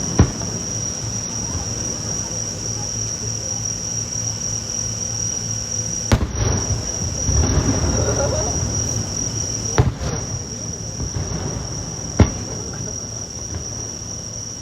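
Fireworks shells bursting: four sharp bangs spread through the stretch, with a rumbling spell after the second. Under them runs a steady high insect trill, typical of crickets.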